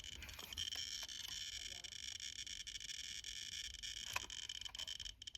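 Faint, steady, high-pitched electronic buzz from a Radiacode 103 radiation detector held against a smoke detector's americium-241 chamber, counting at almost 7,000 counts per minute, far above background. A few light clicks of handling sound over it.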